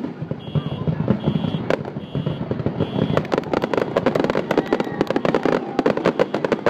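Aerial fireworks shells bursting in a dense barrage of rapid crackling and popping over low booms, the crackle growing thicker after about three seconds. A short high beep repeats several times in the first half.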